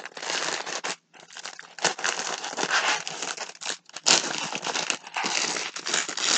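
White plastic sleeve crinkling and rustling as a diamond-painting canvas is slid back into it, with a brief pause about a second in.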